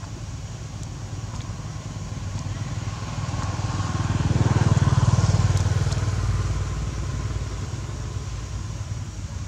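A motor vehicle, such as a motorbike, passing by unseen: a low engine drone that swells to its loudest about halfway through and then fades.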